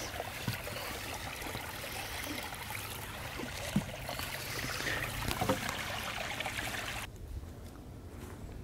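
Small woodland brook running and trickling steadily, with a couple of faint knocks over it. The water sound falls away about seven seconds in.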